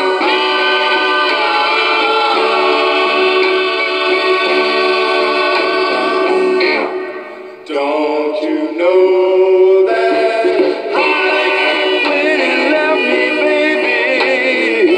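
Sweet soul 45 rpm single playing on a suitcase turntable: singing over a backing band, with a brief dip in level about seven seconds in.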